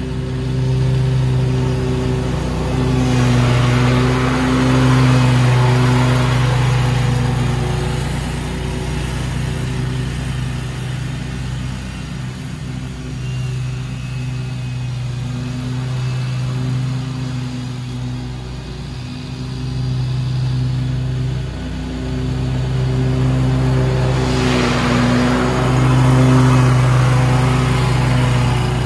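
Scag Tiger Cat II zero-turn mower running steadily at mowing speed with its blades cutting grass. The engine hum and cutting hiss grow louder twice, about a few seconds in and again near the end, and ease off in between as the mower works the far side of the lawn.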